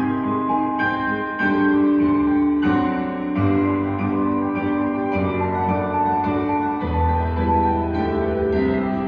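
Solo piano playing slow ballet-class accompaniment for a barre exercise, with sustained chords and a melody moving from note to note.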